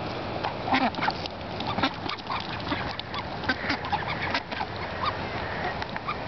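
A flock of ducks, mostly mallard hens, quacking close by in many short, overlapping calls.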